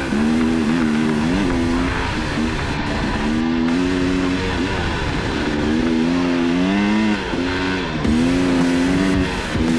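Dirt bike engine revving up and dropping back several times as the rider accelerates and eases off the throttle on a loose dirt track, with a brief dip in engine sound about seven seconds in. Wind and rushing noise run underneath.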